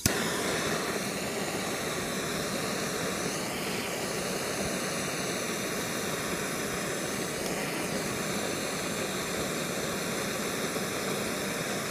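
Handheld gas torch lit with a click and then burning with a steady hiss as its flame is held on an aluminum can to heat it for brazing.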